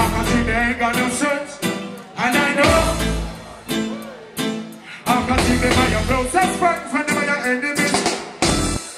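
Live reggae band playing, with a male vocalist singing and chanting over keyboards, drums and guitar; the heavy bass drops out briefly twice.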